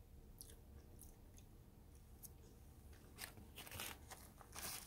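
Faint eating sounds from a person chewing sushi: soft scattered clicks at first, then a few louder crackly rustles in the last second and a half.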